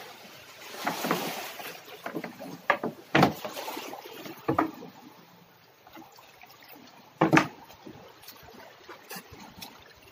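Water splashing and sloshing around a small boat, with a few sharp, separate knocks; the loudest knock comes a little past the middle.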